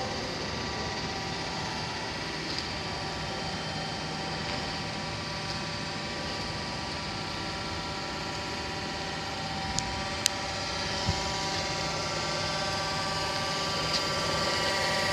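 Proth surface grinder running: a steady machine hum made of several held tones over a noisy bed. A few sharp clicks come about ten seconds in, and the sound grows a little louder near the end.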